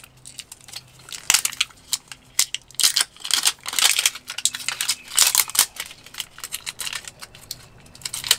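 Plastic clicks, scrapes and rustling as batteries are handled and fitted into a small plastic battery holder, with the busiest bursts of handling about three to four seconds and five seconds in.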